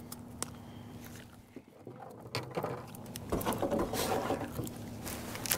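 A faint steady hum, then from about two seconds in irregular rustling, tapping and scrabbling handling noises as a caught crappie is held and turned in gloved hands.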